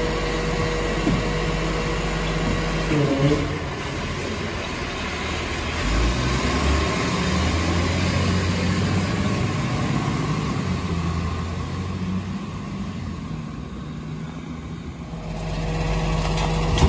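Rear-loading garbage truck's diesel engine: idling with a steady whine at first, then pulling away about three seconds in, the engine working harder a few seconds later. It eases off as the truck slows, and the steady idle whine returns near the end.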